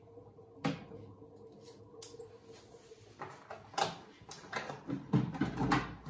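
Cardboard packing inserts being handled and pulled out of an empty glass aquarium tank, scraping and knocking against the glass. A single sharp click comes about half a second in, then a run of rustles, scrapes and knocks grows louder through the second half.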